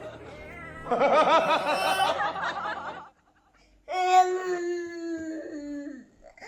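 A baby laughing in a run of giggles for about two seconds, then, after a short pause, a long pitched tone that falls slowly.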